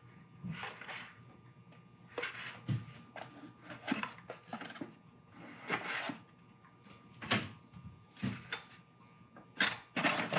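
Handling noise from air tools being set into a foamcore drawer sorter: a red air tool and its hose are shifted and placed, giving irregular knocks, clunks and rustles every second or two.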